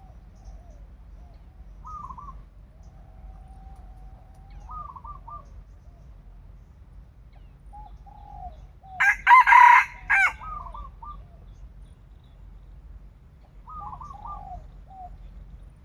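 A junglefowl rooster crows once, loudly and briefly, about nine seconds in. Short, soft clucking calls come before and after it.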